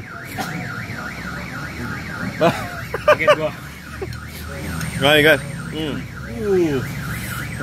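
Car alarm sounding: an electronic tone that warbles quickly up and down, several times a second, without a break.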